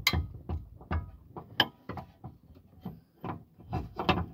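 A pry bar knocking and levering against a Nissan Leaf's driveshaft at the reduction gearbox, about three sharp knocks a second, as the half-shaft is worked to check for play.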